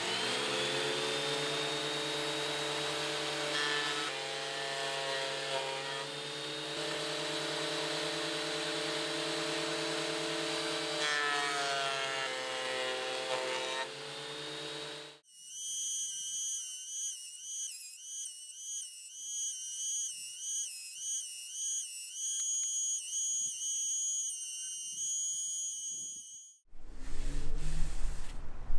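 Metabo benchtop thickness planer running steadily while boards are fed through it, its tone shifting a few times. About halfway through, the machine sound stops and a high, wavering tone takes over, stepping up and down in pitch for about eleven seconds before cutting off.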